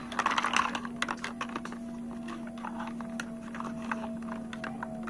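Small plastic toy dishes and parts clicking and clattering against each other as a hand handles them, many light clicks, thickest in the first couple of seconds and sparser after.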